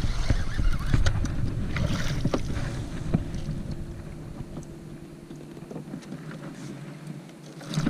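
A hooked fish splashing at the surface beside a kayak as it is fought in and lifted out, with wind rumbling on the microphone and a few sharp clicks and knocks in the first three seconds. It goes quieter after about four seconds.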